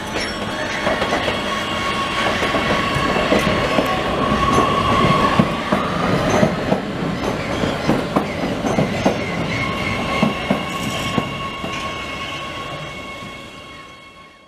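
Oslo Metro MX3000 train running alongside the platform: a steady high whine over the running noise, with wheels clicking over rail joints in the middle. It fades away near the end.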